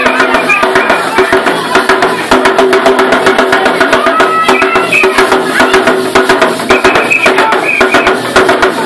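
Music for a traditional dance: several voices singing steady notes over a fast, dense rattling and stamping beat from dancers' ankle rattles.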